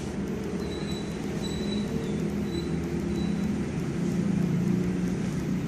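Steady low mechanical hum, with a faint high thin whine coming and going in the first few seconds.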